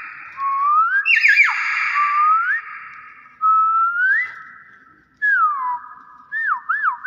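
Hill myna giving a string of loud, clear whistles: several rising glides, a couple of held notes and a falling note, then a fast up-and-down warble near the end.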